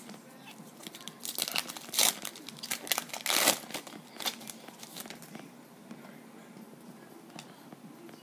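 Wrapper of a baseball-card pack being torn open and crinkled. The crackling and tearing starts about a second in, is loudest in the middle, and dies away after about five seconds.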